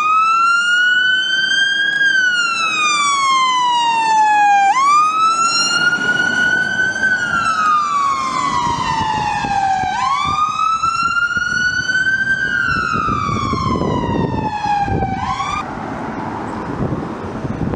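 Fire engine siren on a slow wail, the pitch climbing and then falling about every five seconds, three times over, before cutting off about fifteen seconds in. Engine and road noise of the passing appliance grows under it near the end.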